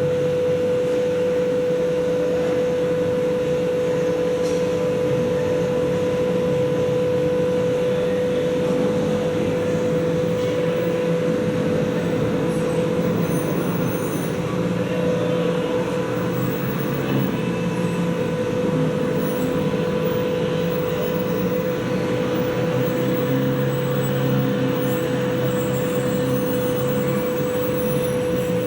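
Diesel locomotive engine running steadily, with a constant whine over the engine noise.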